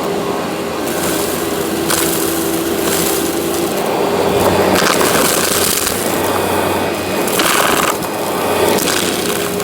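Workhorse vacuum cleaner running with a steady motor hum under a loud rushing hiss. The hiss changes in strength and brightness every second or so as the suction and airflow shift.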